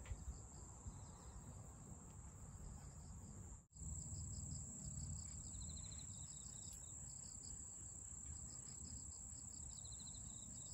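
Grass insects chirping and trilling: a steady high-pitched trill with rows of rhythmic pulsed chirps, faint, over a low rumble. The sound drops out sharply for an instant about a third of the way in.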